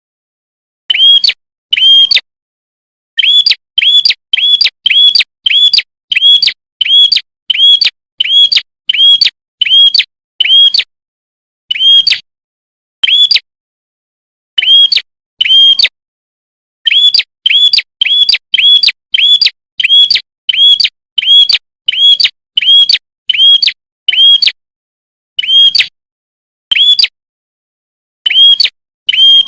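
A prenjak (a small prinia-type songbird) calling, repeating one sharp, high chip note about two times a second in runs, broken now and then by pauses of a second or two.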